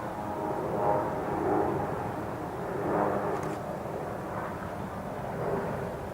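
Airbus A380's four jet engines heard from the ground as the airliner flies on approach: a steady rumble that swells and fades a few times.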